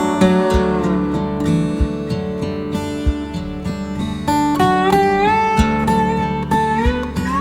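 Instrumental music: a guitar playing sustained notes that slide up in pitch, over a steady low beat.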